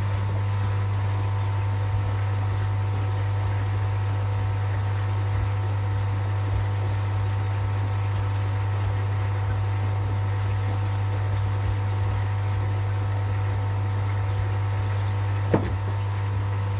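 A steady, unchanging low hum from running equipment, with a single faint knock near the end.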